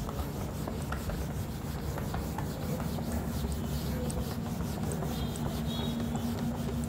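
A cloth rubbing back and forth across a whiteboard, wiping off marker writing: a continuous scrubbing sound.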